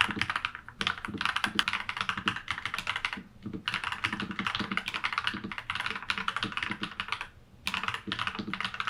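Fast, continuous typing on a NuPhy Halo96 mechanical keyboard with lubed Akko Vintage White linear switches: a rapid stream of key clacks and deep thocks, broken by three short pauses.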